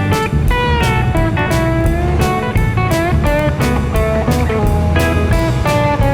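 Background music with a steady beat: electric guitar playing bluesy lines with bent notes over bass and drums.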